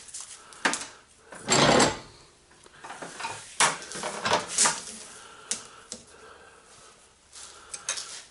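Metal clinking and rattling as the spiral steel armor of BX cable is handled, twisted and unwound off its copper wires, in scattered clicks with one longer, louder rattle about a second and a half in.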